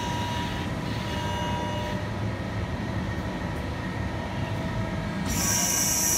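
Steady mechanical hum of factory machinery, with a burst of high hissing starting about five seconds in.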